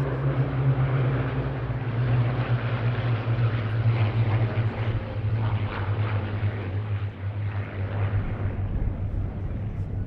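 Piston-engined propeller fighter flying past, a steady engine drone that slowly falls in pitch as it goes by.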